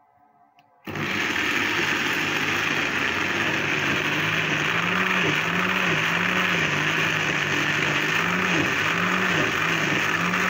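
Tiger electric juicer-blender switched on about a second in, its motor running loud and steady as it grinds green chillies, ginger, garlic and spices with water into a wet paste; the motor hum wavers slightly.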